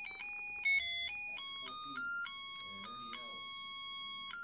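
Tinny electronic tune from a battery-powered Easter decoration's sound chip: a simple melody of beeping notes, several a second, with one longer held note near the end.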